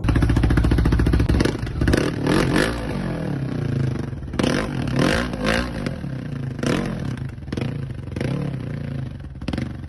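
Dirt bike engine running and being revved again and again, its pitch rising and falling with each blip of the throttle.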